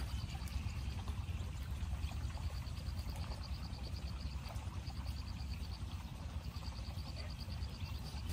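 Pot of water boiling hard over a small wood fire, a steady low bubbling rumble. A rapid high-pitched trill comes and goes in runs of about a second over it.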